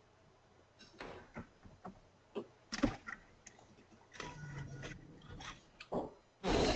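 Irregular clicks and knocks, the sharpest about three seconds in, with a few short scuffling noises, heard over a webinar's audio line just after the attendees' microphones are unmuted.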